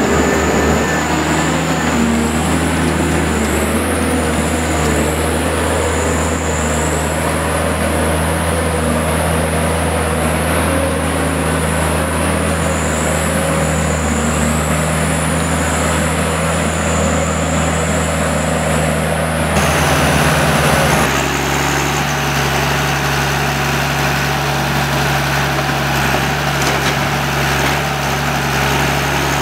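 John Deere 1110D forwarder's diesel engine running steadily under working load, with a high whine over it. About two-thirds through the whine stops and the engine note drops, settling to a lower, steady speed close to idle.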